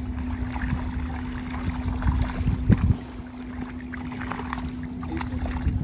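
Cast net being dragged up out of shallow water, splashing and dripping, under wind rumbling on the microphone and a steady low hum. A sharp knock comes a little before halfway.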